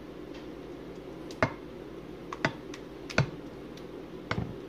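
Four sharp knocks of a utensil against a pan, roughly a second apart, over a steady low background hum.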